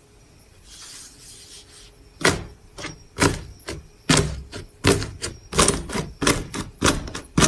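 Slime being worked by hand, giving a quick, uneven run of sharp pops and clicks, about three a second, that starts about two seconds in after a faint hiss.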